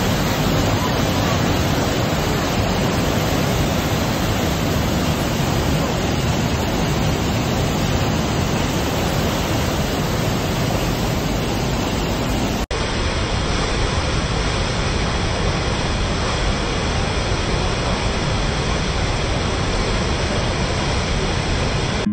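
The Rhine Falls thundering at close range: a large river waterfall giving a loud, steady roar of crashing white water.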